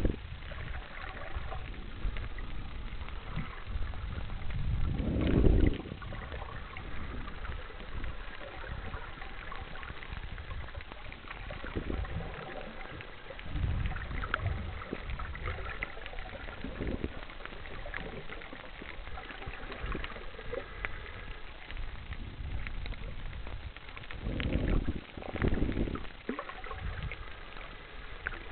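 Underwater sound picked up by a snorkeller's camera: a steady muffled wash of water with faint crackling, and louder low whooshes of water moving past the camera about five seconds in, around twelve to fourteen seconds, and twice near the end.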